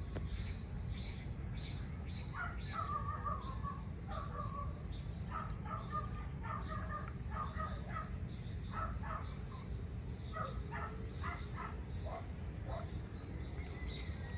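Birds calling in bursts of short repeated notes, busiest from about two to ten seconds in, over a steady high insect drone and a constant low background rumble.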